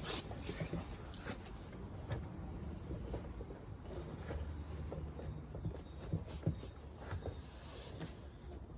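Trim bar prying at a Land Rover Freelander 2 rear door card: scattered faint clicks and knocks of the bar and panel being worked, with a few brief high chirps.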